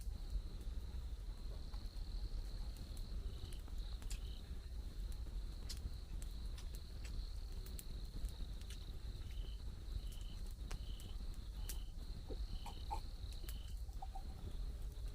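A chorus of jungle insects with a steady high-pitched drone. In the second half, about six short chirps come roughly a second apart, over a low steady rumble with scattered sharp ticks.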